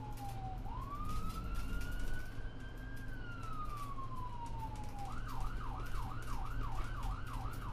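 Emergency vehicle siren in wail mode, slowly rising and falling, that switches about five seconds in to a fast yelp of roughly two to three sweeps a second. A steady low hum sits underneath.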